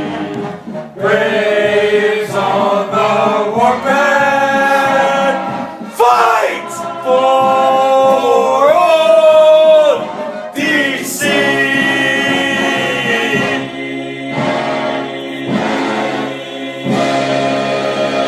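Men's voices singing a cappella with no clear words. They hold long notes and slide up and down between some of them.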